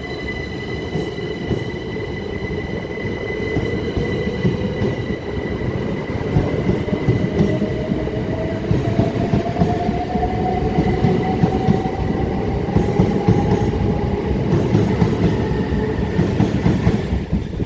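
Class 375 Electrostar electric multiple unit pulling away and accelerating. Its traction whine rises slowly in pitch over a steady rumble of wheels on the rails, growing louder as it gets going.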